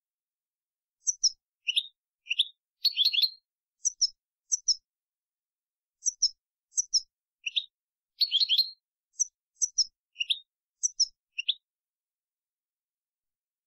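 European goldfinch song: quick runs of high twittering notes and short buzzy trills in two phrases with a brief pause between them, on a dead-silent background.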